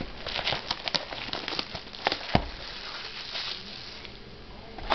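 Plastic wrap on a trading-card box crinkling and crackling as the box is handled and unwrapped, with scattered sharp clicks. It goes quieter in the second half, with a sharp click at the end.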